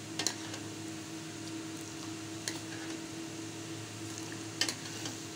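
Milk tea bubbling in a steel saucepan as it is beaten with a steel ladle, with three sharp clinks of the ladle against the pan. A steady low hum runs underneath.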